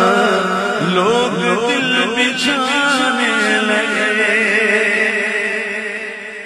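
A man singing an Urdu naat into a microphone: long drawn-out notes with a wavering, ornamented pitch. The voice fades down near the end.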